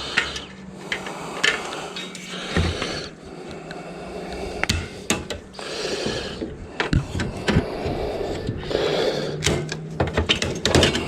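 Hand tools and metal and plastic parts being handled while an autoclave is taken apart. Scattered sharp clicks and taps come with rustling handling noise, busiest in the last few seconds.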